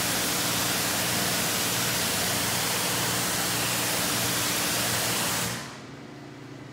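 Pressure washer wand spraying a steady jet of water onto a car windshield, cutting off about five and a half seconds in as the trigger is released.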